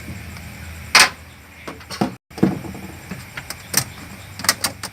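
Scattered knocks and clicks of refrigerator parts being handled and pried apart during disassembly, the loudest knock about a second in, over a low steady hum.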